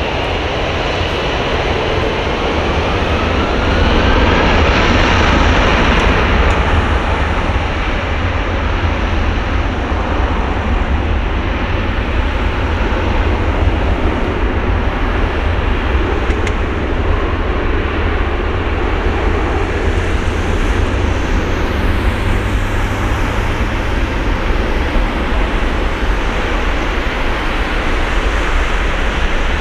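Airbus A330-300's two General Electric CF6-80E1 turbofan engines spooling up to takeoff thrust. A rising whine over the first few seconds gives way to a loud, steady jet roar as the airliner makes its takeoff roll.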